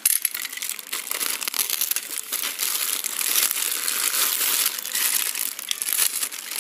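Clear polyethylene bag of monitor cables crinkling continuously as it is handled and slit open with a box cutter.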